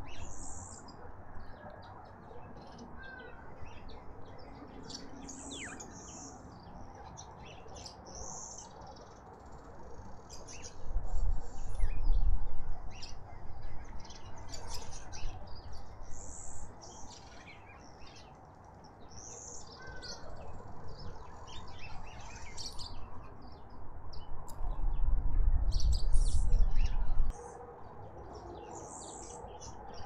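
Small garden birds chirping and twittering, in short high chirps throughout. A low rumble comes twice, about a third of the way in and again for a few seconds near the end, and is louder than the birds.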